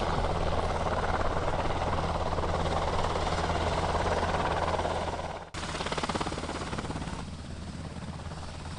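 Customs and Border Protection helicopter flying low and close, a steady deep rotor and engine hum under loud rushing noise. About five and a half seconds in the sound cuts abruptly and resumes a little quieter.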